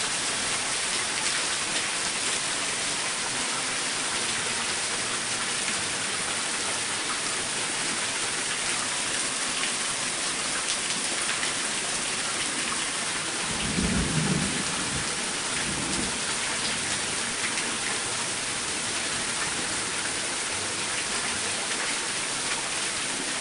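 Heavy rain pouring steadily in a thunderstorm, with a low rumble of thunder a little past halfway that lasts about two seconds.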